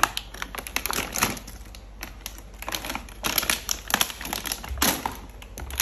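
Irregular clicks and light clatter of small plastic toy kitchen pieces being handled and rummaged through.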